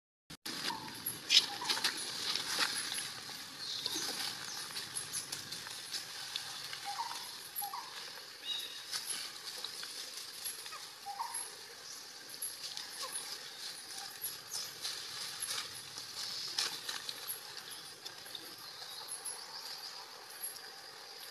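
Outdoor ambience with many scattered short clicks and a few brief chirps, over a steady faint hiss.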